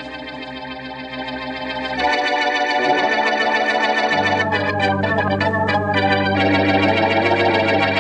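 Organ music of a radio drama's theme or scene bridge: held chords that change every second or two, swelling louder about two seconds in.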